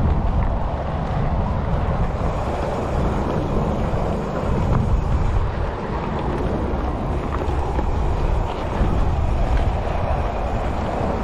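Mountain bike ridden along a dirt trail, heard from a camera on the bike or rider: a steady rush of wind on the microphone and tyre noise, with a few faint clicks and rattles from the bike.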